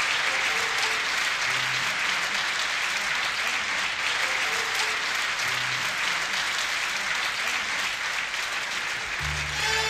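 A concert audience applauding steadily, with faint instrumental notes beneath. About nine seconds in, the orchestra comes in strongly with low sustained notes.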